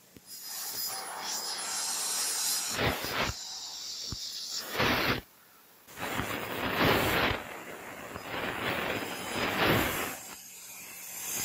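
Fiber laser cutting machine cutting sheet metal: the gas jet at the cutting head hisses in bursts that swell and fade as the head cuts and moves, with a brief silence about five seconds in.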